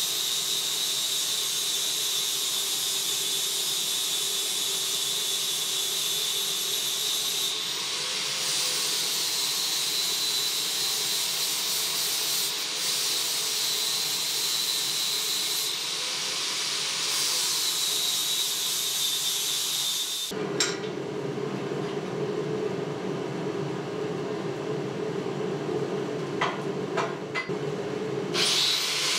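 Angle grinder with a flap disc grinding steel: a steady high whine over a hiss of grinding, dipping briefly several times as the disc is pressed to the work. About twenty seconds in the grinding stops, leaving a lower steady roar with a few sharp clicks, and near the end the grinder runs again.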